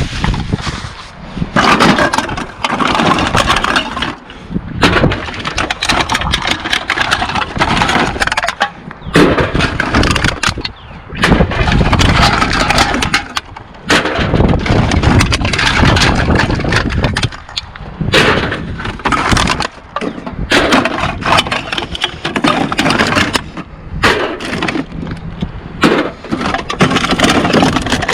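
Crackling, clattering handling noise of empty aluminium pop and beer cans and bags being gathered and shifted, with many sharp clicks and crinkles in uneven bursts.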